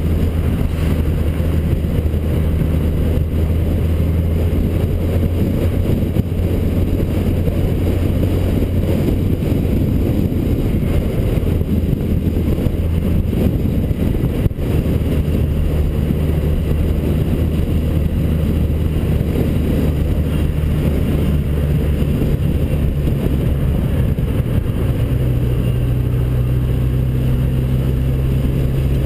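Motorcycle engine running at steady town speed, heard from the bike itself with road and wind noise; the engine note shifts in pitch about halfway and again near the end, and there is a single short click about halfway.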